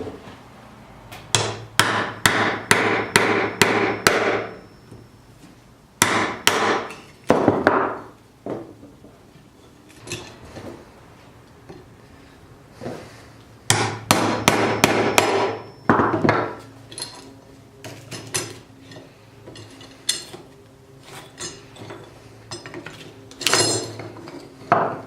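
Hammer blows in quick runs of about four strikes a second, two long runs and several shorter groups and single knocks, with a faint high ringing tone during the fast runs.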